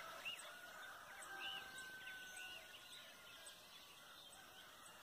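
Faint early-morning birdsong: small birds chirping now and then, and a rooster crowing once, long and faint, in the first half.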